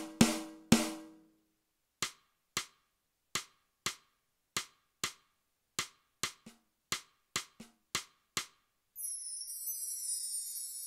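Roland TD-8 electronic drum module played from its pads: a fast snare roll ends in a last accent, then about fourteen single short drum hits roughly half a second apart, then a shimmering cymbal comes in near the end and fades.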